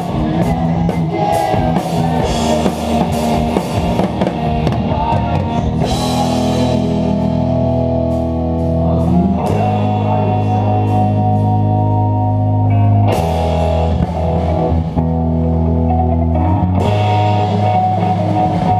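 Rock band playing live: a drum kit under guitar. The drums are busy for the first six seconds, then thin out to cymbal crashes about six, thirteen and seventeen seconds in while held guitar chords ring on.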